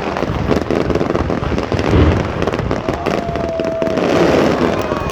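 New Year fireworks and firecrackers going off: dense, continuous crackling and popping, with a heavier boom about two seconds in and a steady held tone for about a second from about three seconds in.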